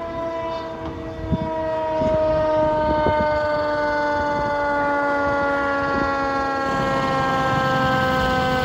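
Fire engine's mechanical siren winding down, its pitch falling slowly and evenly. It grows louder about two seconds in as the truck approaches, over a low rumble.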